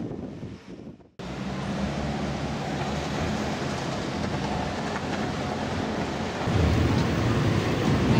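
A passing tram's running noise fades out within the first second. Steady city street noise with a low hum follows, swelling into a louder low rumble about six and a half seconds in.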